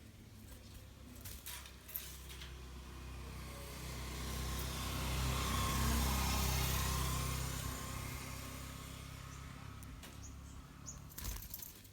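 A motor vehicle passing close by: its engine hum and tyre hiss swell to a peak about halfway through and fade away. A few short clicks come near the start and near the end.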